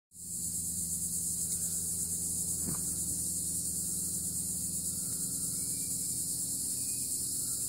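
Insects chorusing outdoors: a continuous shrill high-pitched buzz that holds steady throughout, over a steady low hum.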